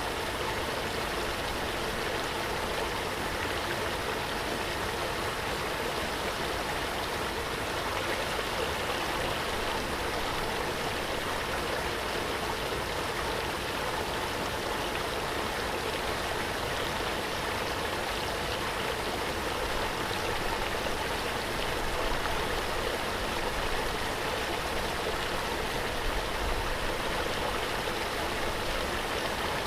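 Waterfall: falling water rushing in a steady, even wash.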